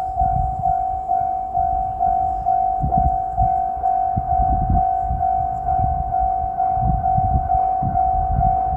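Japanese railway level-crossing warning bell ringing, a steady electronic tone repeating about twice a second, over an uneven low rumble.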